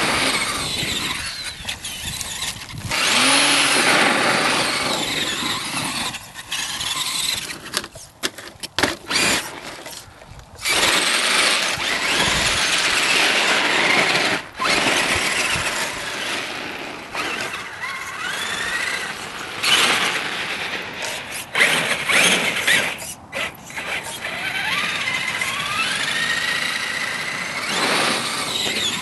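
Traxxas Summit RC monster truck's electric motor and drivetrain whining in bursts as the throttle is worked on and off, the pitch rising and falling with speed, with short gaps between bursts.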